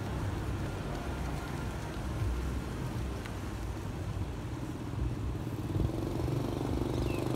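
Street traffic heard from a moving bicycle: motorbike and car engines running past over a steady low rumble, with an engine hum building near the end.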